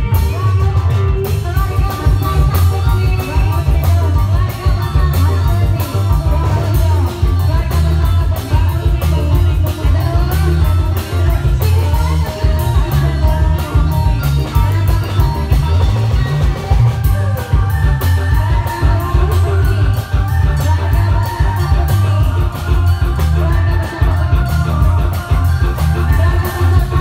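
Loud music accompanying a reog street dance: a heavy bass and fast, dense drumming under a melody line.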